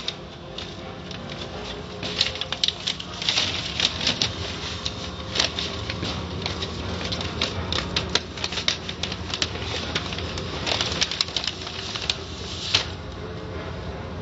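Automatic car wash cloth curtain strips slapping and dragging across a foam-covered car's windshield and body, heard from inside the car: irregular sharp slaps and patters over a steady low hum.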